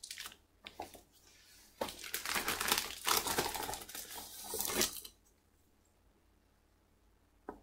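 Crinkling and rustling of comic books being handled and set aside, with a few light taps at first; the crinkling runs about three seconds and stops abruptly about five seconds in.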